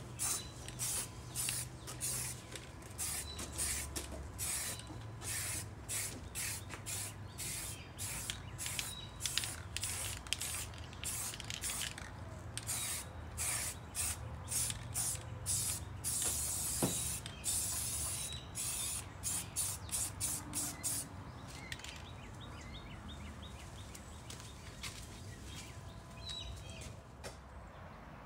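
Aerosol spray-paint can hissing in many short bursts, with one longer spray a little past halfway, as a brake rotor is spray-painted gloss apple red. The spraying stops about three quarters of the way through.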